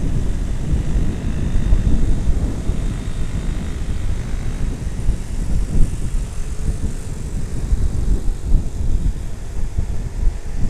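Riding a motorcycle at speed: wind buffeting the microphone in a heavy, gusting rumble, with the drone of the bike's engine underneath.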